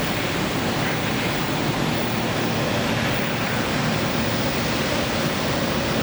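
Steady, even rushing noise of shop machinery running at a CNC router.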